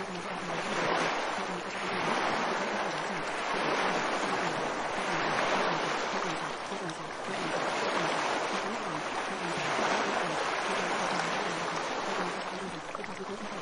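Rushing water noise like surf, swelling and easing every couple of seconds, with a faint, muffled voice buried underneath: the masked subliminal affirmations.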